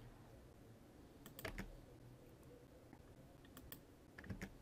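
Faint clicks of a computer mouse and keyboard in a few small groups: a mouse click placed before each paragraph's first word, then a Tab key press to indent it.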